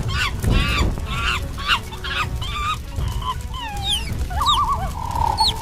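Birds chirping, with many short rising and falling calls, a warbling trill near the end and then a held whistle-like note, over steady low background noise.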